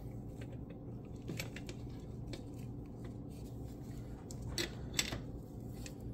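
Hand wrenches clicking and scraping on a metal fuel injector removal tool as it is turned onto the injector threads: scattered light metallic clicks, with the sharpest pair about four and a half to five seconds in, over a faint steady low hum.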